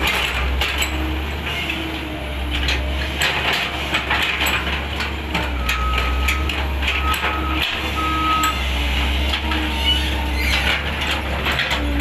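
CAT wheeled excavator's diesel engine running under hydraulic load as it digs, with repeated clanks and scrapes of the steel bucket in dirt. A short high steady tone sounds three times around the middle.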